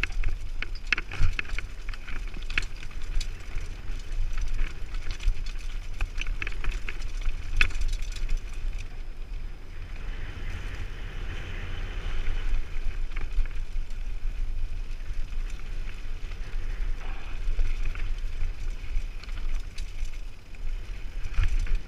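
Mountain bike riding fast down a rocky dirt trail, heard from a camera mounted on the rider: steady wind rumble on the microphone with frequent clattering and rattling as the bike goes over rocks.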